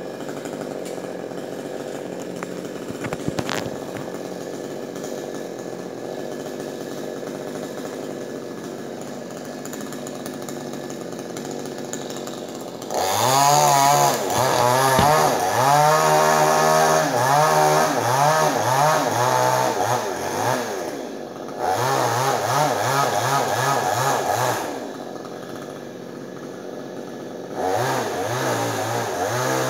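Two-stroke chainsaw idling steadily, then revved hard in repeated surges that rise and fall in pitch as it cuts into the palm trunk. It drops back toward idle twice, briefly about two-thirds in and for a few seconds after, then revs up again near the end.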